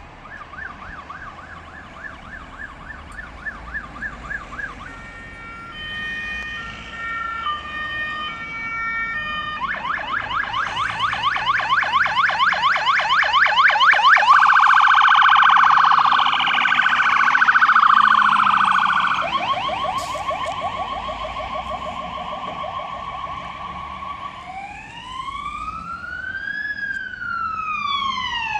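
Fire engine siren on an emergency run, cycling through its patterns: a fast yelp, then a hi-lo two-tone, a fast yelp again, a rapid warble, another yelp, and slow rising-and-falling wails near the end. It grows louder as the truck approaches, is loudest about halfway through as it passes, then fades somewhat.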